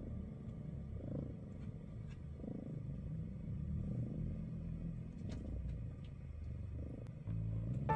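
Tabby-and-white kitten purring close to the microphone as it lies curled up asleep, the purr swelling and easing with each breath about every second and a half. Soft music comes in near the end.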